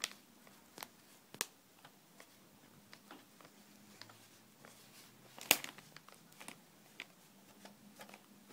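Scattered light clicks and taps, one louder about five and a half seconds in, from small hand tools and a motherboard being handled while a stuck standoff screw is worked loose.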